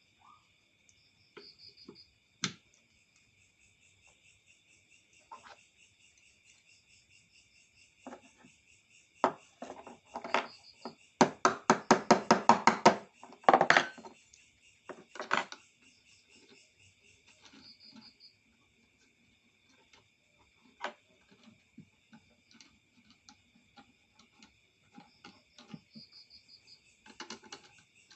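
Scattered knocks and clatter, with a run of rapid repeated tapping strikes about halfway through, over crickets chirping steadily in the background.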